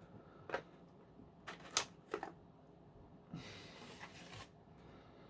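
Hard plastic clicks and knocks from a Dyson V10 cleaner head being handled as its brush roll is taken out: four sharp clicks in the first two and a half seconds, then a brief scraping rustle about three and a half seconds in.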